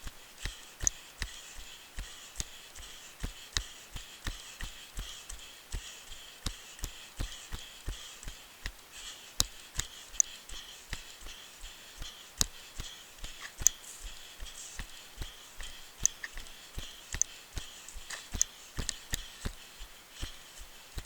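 Running footsteps on a dirt rainforest trail, about three strides a second, each landing a dull thump. A steady high-pitched background sound runs underneath.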